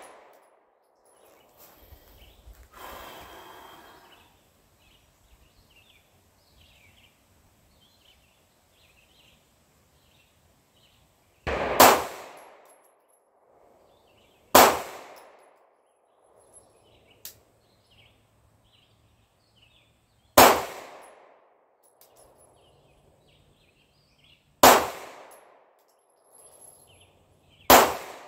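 Five single shots from a Sig Sauer P226 pistol, fired slowly one at a time a few seconds apart, the first about twelve seconds in. Each shot is a sharp crack with a brief ringing echo.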